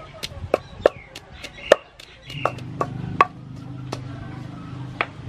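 Wooden pestle pounding chili and garlic in a mortar: irregular sharp thuds, about one or two a second. A steady low hum runs underneath from about two seconds in.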